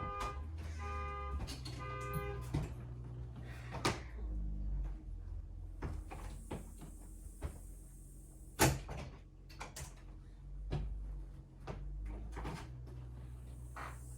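Car horn blaring in short repeated blasts from a car alarm going off, stopping about two and a half seconds in. After that come scattered knocks and clatter like doors and objects being handled, with one sharp bang about nine seconds in.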